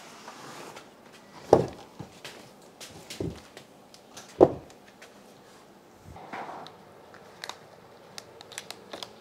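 Dull knocks and bumps of a heavy (about 50 kg) LESU 1/14 hydraulic RC excavator model being lifted out of its wooden crate and set on the floor, loudest twice, about a second and a half and four and a half seconds in. Then a rustle, and light clicks and crinkling of plastic-bagged small parts being handled.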